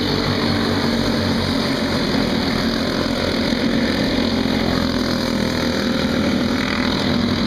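Racing go-kart engines running together at speed as a pack laps the track: a steady buzz in which several engine notes overlap.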